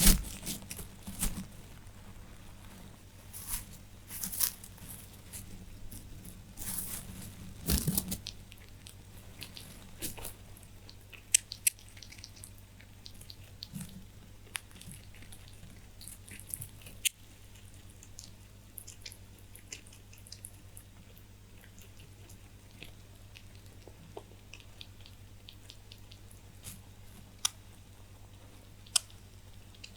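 Pet rabbits chewing hay: busy crunching for roughly the first ten seconds, then only scattered sharp crunches over a faint low hum.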